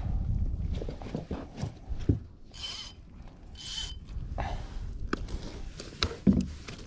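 Spinning fishing reel cranked in two short whirring bursts, with scattered knocks from handling the rod and landing net as a fish is landed in a kayak.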